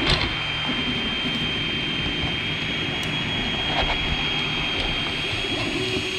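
Anet A8 3D printer printing: its stepper motors hum in short tones that keep changing pitch as the print head and bed move, over the steady whir of its fans with a constant high whine. A small knock right at the start.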